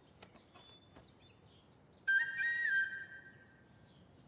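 A single short flute-like whistle note, about two seconds in. It steps up in pitch, drops back and fades away over about a second: a music sting.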